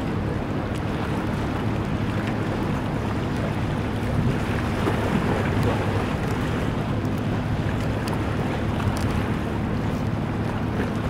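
A boat engine droning steadily, with a constant low hum under a wash of wind and water noise.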